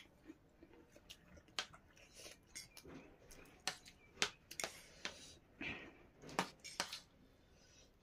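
Metal forks and spoons clinking against dinner plates while two people eat, as irregular sharp clicks, most of them and the loudest between about three and seven seconds in.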